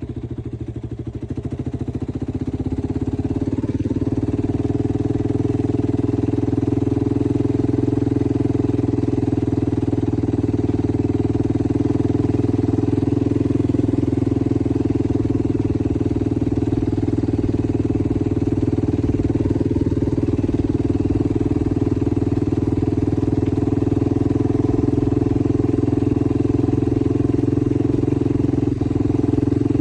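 Yamaha YFZ450R quad's single-cylinder four-stroke engine running at a steady pitch, growing louder over the first few seconds.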